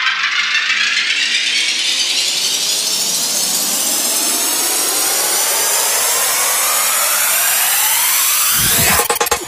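Psytrance build-up: a noisy synth riser with pitched layers sweeps steadily upward in pitch, with no kick or bass under it. About nine seconds in, the kick drum and rolling bassline drop back in.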